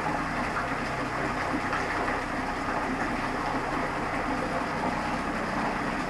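Steady rushing splash of a small waterfall falling in three thin streams from spouts onto the rocks below, with a faint low hum beneath it.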